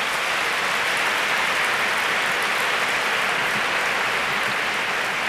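Audience applauding: a steady wash of many hands clapping in a large hall.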